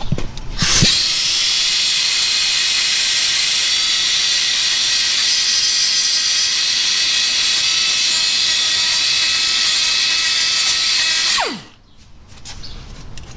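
Pneumatic die grinder running at full speed with a steady high hiss as it chamfers a mounting hole and grinds down weld spots in a steel frame bracket, then released about eleven seconds in, spinning down with a quickly falling whine.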